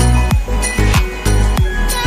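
Background electronic music with a steady beat: deep kick drums about twice a second over bright percussion and held tones.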